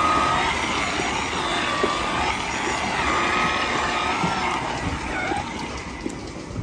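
Milking parlour equipment running: a steady mechanical drone with a wavering whine, as vacuum-driven milking gear is put on a cow's teats.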